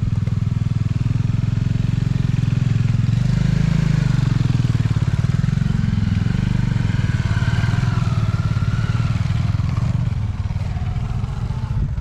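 Single-cylinder motorcycle engine running while the bike is ridden over a rough, broken dirt track, engine speed rising and falling.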